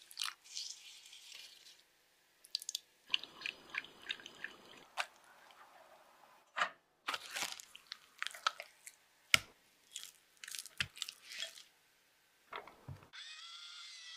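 Close-up kitchen preparation sounds: a thick liquid poured onto egg yolks and sugar in a bowl, then a run of sharp clicks, taps and soft squishy scrapes from a silicone spatula working mascarpone against its tub and bowl. Near the end an electric hand mixer starts up whipping cream, running with a steady pitched hum.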